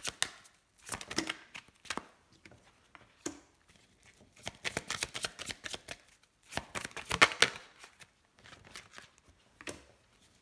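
A deck of oracle cards being shuffled by hand: quick, papery card flicks and slaps in several short bursts with pauses between.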